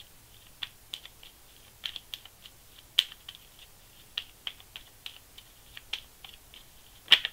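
Tarot cards being shuffled by hand: irregular light clicks and snaps of the cards, a few a second, with one louder snap near the end.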